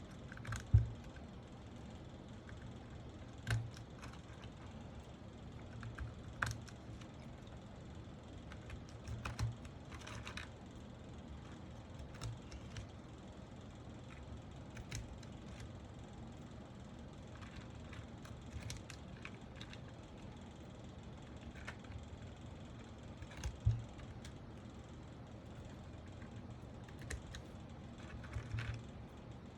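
Scattered sharp clicks and light knocks, a few seconds apart, of mechanical keyboard parts being handled and fitted together, over a faint steady hum.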